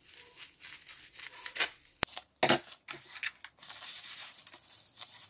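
Scissors cutting through plastic bubble wrap, with irregular crackles and a sharp click about two seconds in, then the bubble wrap crinkling as it is pulled open by hand.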